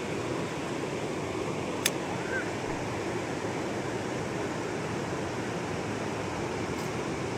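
River water rushing steadily, with a single sharp click about two seconds in.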